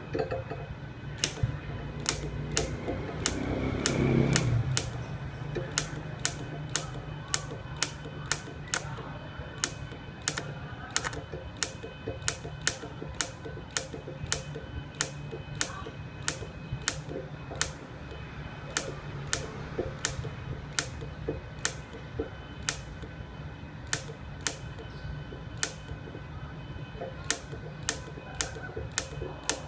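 Inverter TIG welding on thin stainless steel tube at low current: a steady low hum with a faint whine. Sharp clicks come about once or twice a second throughout, and a louder rushing swell rises and falls about four seconds in.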